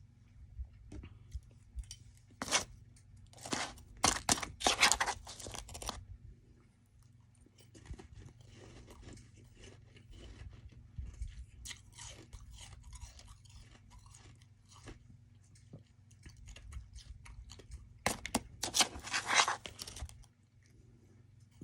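Close-miked chewing of soft freezer frost (frost ice), crunching loudly in a cluster of bites a few seconds in and again near the end, with quieter chewing between.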